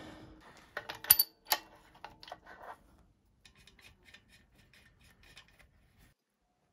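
Small metal clicks and clinks from hands working on a flywheel and fitting a steel dial-indicator bracket beside it. Two sharp clicks come about a second in, with faint ringing. Scattered faint ticks follow and die away after about six seconds.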